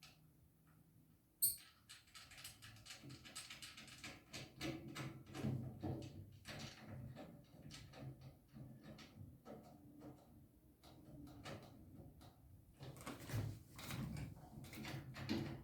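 Small metal hardware clicking, clinking and rattling as nuts, bolts and generator assembly parts are handled and threaded by hand, with one sharp clack about a second and a half in.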